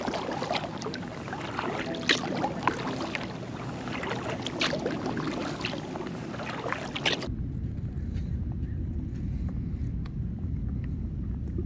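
Kayak paddle strokes: water splashing and dripping off the paddle, with crisp little splashes. About seven seconds in the sound changes abruptly to a low, steady rumble like wind on the microphone, with only faint water ticks.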